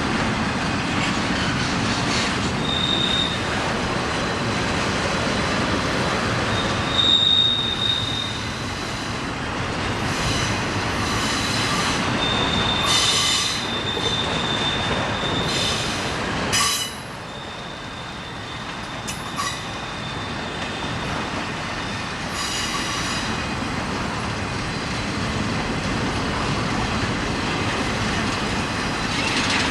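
Railroad cars rolling past on the rails, with high-pitched wheel squeal that starts and stops again and again for a few seconds at a time, over steady rolling noise and a few sharp clicks.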